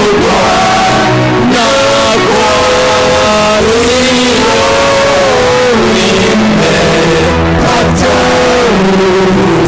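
Loud church worship music: a voice sings a melody of long held notes over accompanying instruments.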